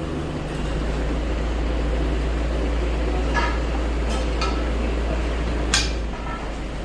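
Isuzu Elf crane truck's engine and hydraulic crane pump running: a steady low drone that steps up a little about half a second in, as if under load, and drops back near the end. A few light metallic clinks in the middle and a sharp click a little before the drone drops.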